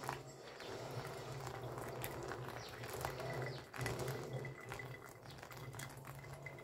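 Thin stream of hot water from a gooseneck kettle trickling onto wet coffee grounds in a pour-over dripper, with faint crackles of bubbles in the foaming bed, over a low steady hum.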